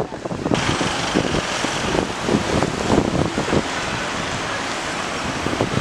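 Steady roadside traffic noise mixed with wind on the microphone, jumping up suddenly about half a second in and then holding steady.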